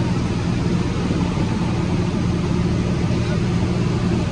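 Steady drone of a single-engine light airplane's engine and propeller in flight, heard from inside the cabin.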